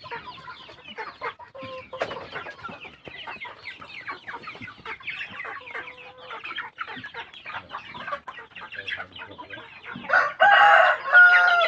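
A flock of Shamo and native crossbreed chickens clucking and calling throughout, with a rooster crowing loudly near the end.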